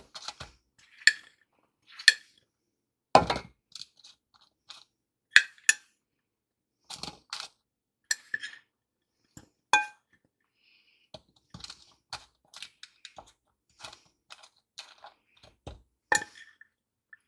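Metal spoon clinking and scraping against a glass mixing bowl and a metal springform pan as sliced apples are spooned across, in irregular sharp taps. The loudest is a dull knock about three seconds in, and one tap about ten seconds in rings briefly.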